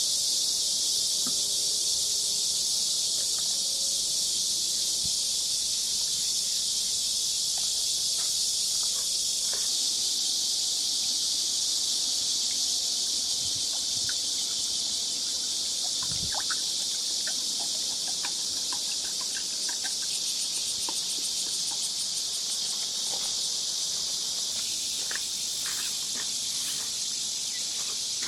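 A steady, high-pitched insect chorus that runs unbroken, with a few faint scattered ticks beneath it.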